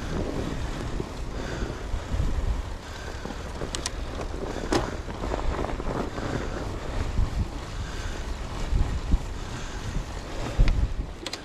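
Wind noise on an action camera's microphone while riding a fat bike on a trail, with uneven low rumble from the ride and a few sharp clicks along the way.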